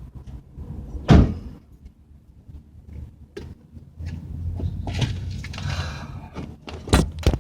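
Knocks and a scraping creak from a 2000 Ford Crown Victoria's front passenger-side suspension, a noise the owner traced to a worn idler arm. There is a heavy thud about a second in, a rough creaking stretch in the middle, and two sharp knocks close together near the end.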